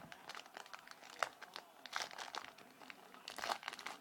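Trading cards being handled and flipped through, irregular crinkling and rustling of card stock and pack wrapper, with a denser bout of rustling near the end.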